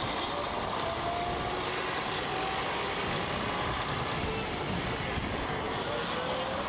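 City bus driving off, its engine running steadily.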